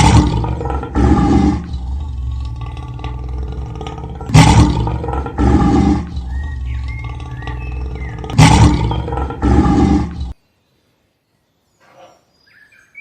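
Recorded lion roars: three roars about four seconds apart, each a loud call followed by a second one about a second later. The sound cuts off suddenly about ten seconds in.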